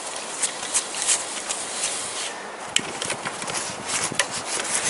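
A 13 mm socket wrench loosening a connecting-rod cap bolt on an engine block: irregular metallic clicks and scraping as the tool turns, with one sharper click about three seconds in.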